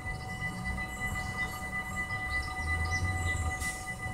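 Level-crossing warning bells ringing on without pause over the low rumble of a DD-AR double-deck electric train at the crossing. The rumble grows stronger about halfway through. Birds chirp in the background.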